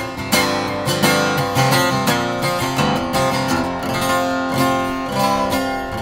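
RainSong carbon-fiber jumbo acoustic guitar strummed in chords, a steady rhythm of several strokes a second.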